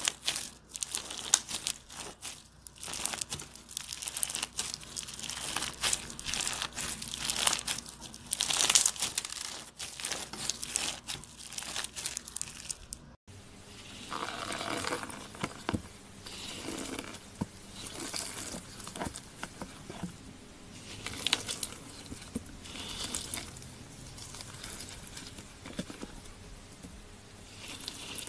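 A mesh stress ball packed with gel beads squeezed between fingers, with dense crinkling, crackling squishes. About halfway through it cuts to a softer, grainy scraping as fingers dig through a tray of glitter.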